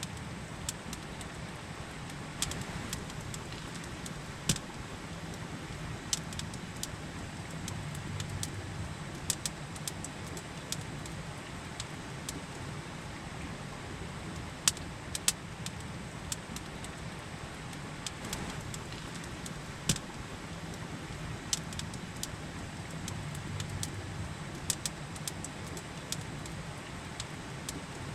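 Campfire crackling, with sharp pops at irregular intervals, over the steady rush of a river.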